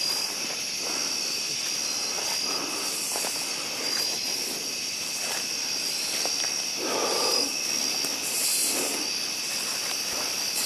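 Steady high-pitched chorus of night insects, with footsteps and rustling through brush and dry vines, loudest about seven seconds in.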